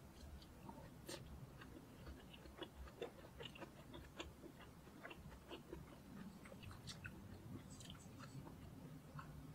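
Faint eating sounds: scattered small clicks and taps of wooden chopsticks against a ceramic plate while yubu-chobap (rice in fried tofu pouches) is picked up and chewed.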